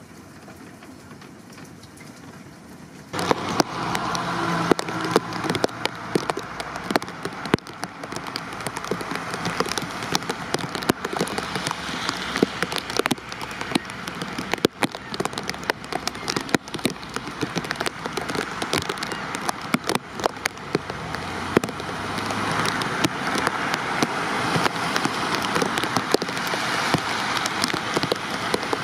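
Rain falling on a hard surface close by: a dense, steady hiss with many separate drop hits. It starts suddenly about three seconds in after a quieter stretch and grows a little louder near the end.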